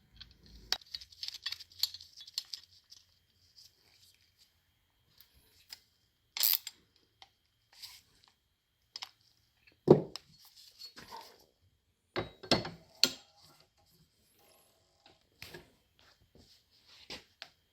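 Small metal parts being handled: scattered clinks, clicks and light rustling, with a heavier knock about ten seconds in and a quick run of sharp clicks around twelve to thirteen seconds.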